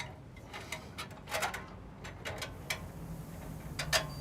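Irregular light clicks and knocks from hands working the metal band saw's upper wheel and blade-tension adjuster, with the wheel lowered to slacken the blade; the sharpest knock comes near the end.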